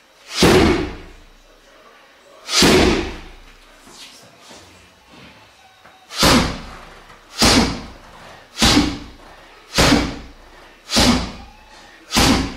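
Downward hand strikes landing on a cushioned car tyre lying on the floor, each a heavy thud with a short echo. Two blows come about two seconds apart, then after a pause six more follow at a steady pace, roughly one a second.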